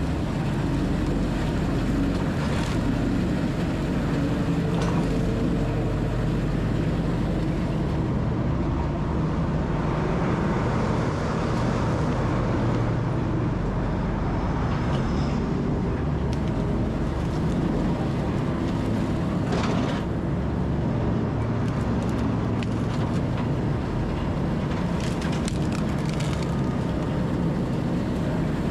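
Rotochopper B66L wood grinder and a Hyundai wheel loader running under load while grinding fallen pine trees into chips. There is a steady, heavy machine rumble throughout, with a few sharp knocks from wood inside the grinder.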